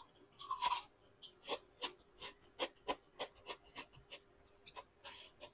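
Close-miked eating: a wet slurp as fingers are sucked clean, then chewing with sharp wet mouth clicks about three a second, and a short breath near the end.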